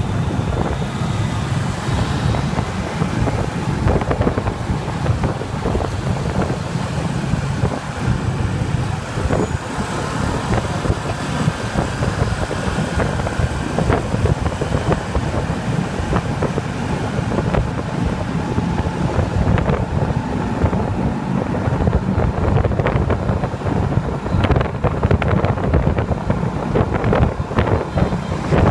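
Wind buffeting the microphone over the steady running of a motorbike riding through motorbike traffic, heard from the pillion seat. Many small knocks and rattles come in the last several seconds.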